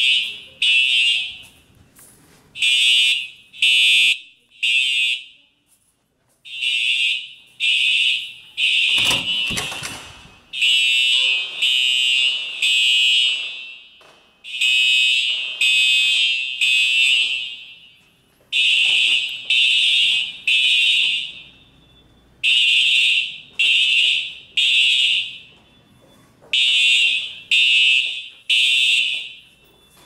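Simplex TrueAlert fire alarm horns sounding the temporal-three evacuation pattern: three short, shrill blasts, a pause, then three more, repeating steadily. This is the fire alarm system in alarm during a test.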